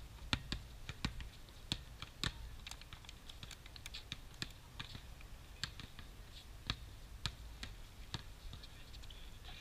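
Irregular sharp taps and slaps of a basketball game on an outdoor hard court: ball bounces and sneakers on the playing surface, a few every second, over a steady low rumble.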